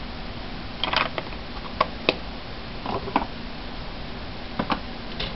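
A scattering of light clicks and taps from craft supplies being handled on a wooden desk, over a steady low hum.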